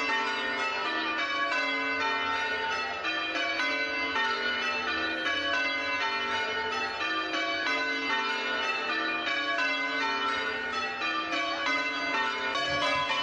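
Church bells rung in changes: a steady, unbroken run of overlapping bell strikes at an even pace.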